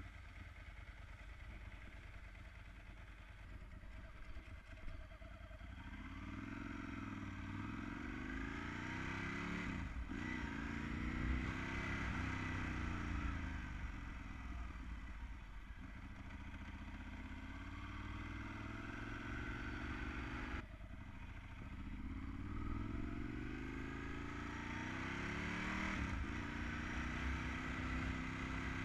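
Ducati 916's 90-degree V-twin engine pulling away and accelerating, its pitch climbing in repeated runs with a drop at each gear change, about ten seconds in and again near the end. It is quieter for the first few seconds, then louder once under way.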